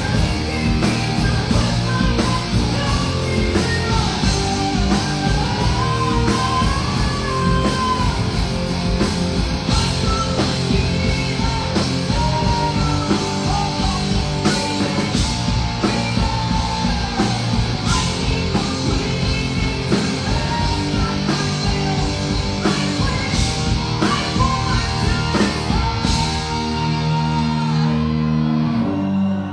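Rock band playing live: electric guitars, bass and drum kit, with a bending melodic line over them. About three seconds before the end the drums stop and held chords ring on.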